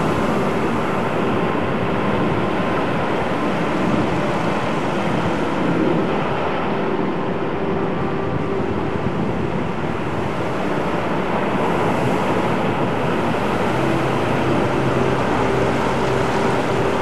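Ocean surf breaking and washing in over rocks and sand at the water's edge: a steady, unbroken rushing wash.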